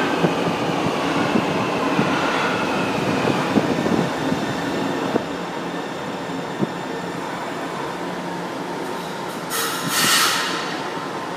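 São Paulo Metro Line 1 train pulling into the station and braking to a stop: the running noise fades as it slows, with faint wheel and brake squeal and a few clicks of wheels over rail joints. About ten seconds in, as it halts, a short loud hiss of air.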